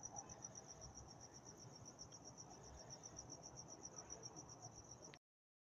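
Faint cricket chirping: a steady high-pitched pulsing at an even, rapid rate, which stops abruptly about five seconds in.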